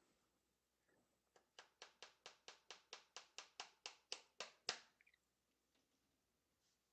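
Claw hammer driving a small tack nail into a wooden stretcher frame: about fifteen quick, light taps, four or five a second, growing louder, with the last tap the hardest.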